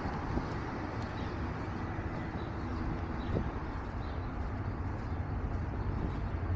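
Outdoor street ambience: a steady low rumble of traffic, with a few faint high bird chirps.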